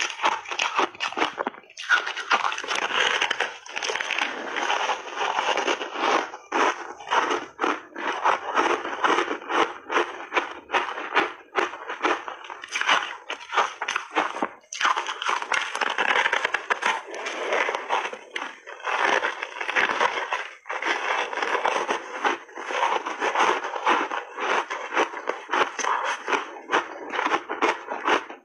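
Close-up chewing of frozen ice coated in milk powder: a dense, continuous crackling crunch, broken by a few brief pauses.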